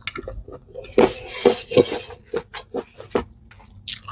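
Close-up eating sounds: crunching and chewing food, with a run of sharp crunches about a second in, followed by a string of separate short chewing clicks.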